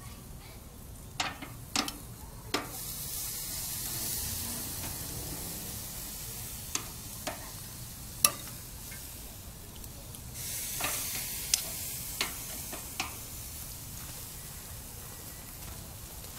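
Marinated Korean short ribs sizzling on a gas grill's grate, the sizzle swelling twice as fresh ribs are laid down. Scattered short clicks of metal tongs against the grate and the meat run through it.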